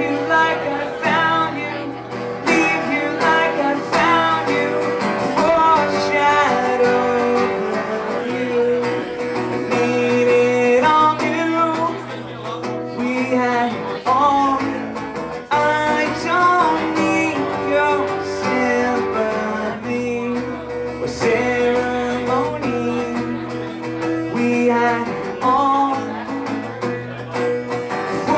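A man singing while strumming an acoustic guitar, in a solo acoustic performance.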